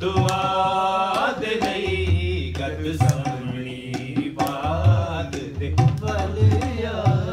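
Punjabi devotional worship music: a wavering melody line over a tabla-style hand-drum beat, with deep bass strokes and sharp slaps at a steady pulse.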